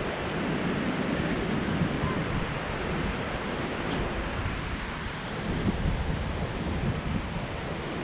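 Steady wind noise buffeting the microphone over the continuous wash of ocean surf.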